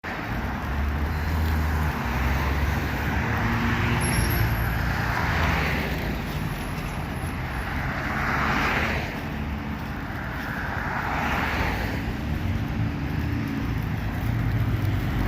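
Road traffic: a steady low engine hum with several cars passing one after another, each swelling up and fading away.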